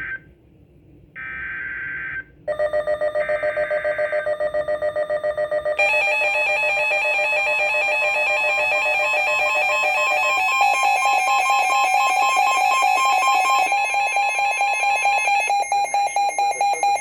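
EAS alert on NOAA Weather Radio: buzzy screeching data bursts of the SAME header, about a second each, then a loud, rapidly pulsing electronic alarm that starts about two and a half seconds in and changes pitch a few times. It signals an incoming severe thunderstorm warning.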